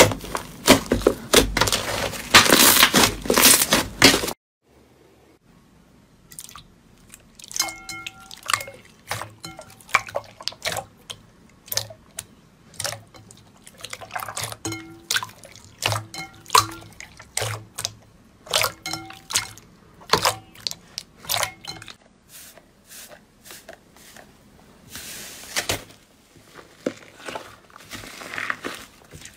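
ASMR slime sounds: dense crunching for about four seconds that cuts off suddenly. After a short pause come sparse wet clicks and sticky pops, some with a brief ringing tone, and a short hiss near the end.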